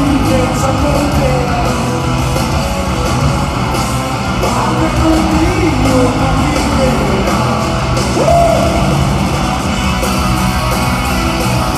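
Rock band playing live through an arena PA and heard from the seats: distorted electric guitars, bass and drums with a man singing loudly over them.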